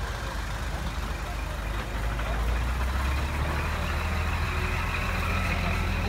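Crane truck's diesel engine running steadily, picking up in speed and level about two seconds in, with a faint high whine joining it.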